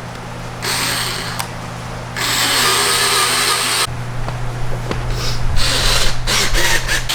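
Portable air compressor running steadily as it inflates a Onewheel GT tire to seat the bead, with stretches of louder hissing.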